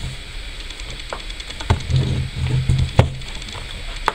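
Plastic shrink wrap being torn and peeled off a cardboard box close to the microphone: sharp crackles about a second in, near the middle and near the end, with low bumps of the box being handled in between.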